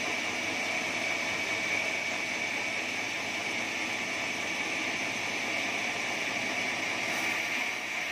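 Sawmill bandsaw running steadily, its blade sawing through an acacia wood beam with an even, high-pitched hiss.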